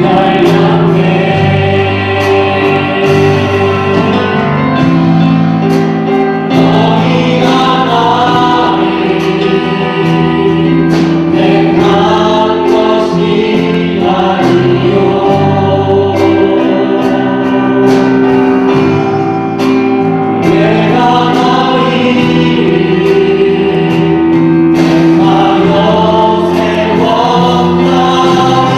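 Church choir singing a sacred piece in sustained, changing chords, with steady low notes underneath.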